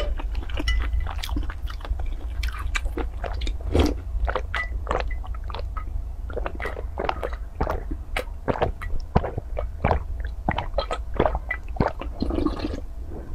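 Close-miked gulping and swallowing as a large bowl of milky liquid is drunk down: a quick, even run of wet gulps, about two or three a second.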